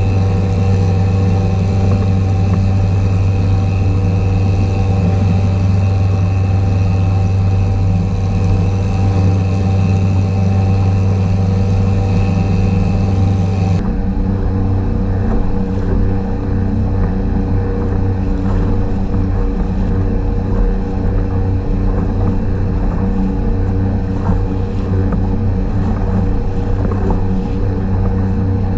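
52cc two-stroke trimmer-engine outboard running steadily at speed, pushing a kayak through the water. About 14 s in, the engine note drops back under more splashing water and wind noise.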